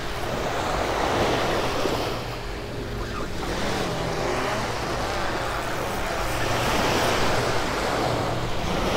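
Small surf breaking and washing up a sand beach, a steady wash of noise that swells and eases every few seconds.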